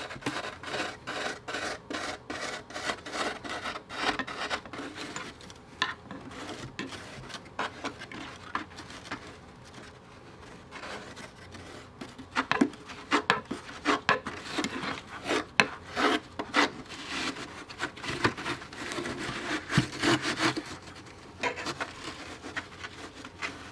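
A hand tool scraping and rasping at furnace refractory in many irregular strokes, clearing out material so a piece can slide further in.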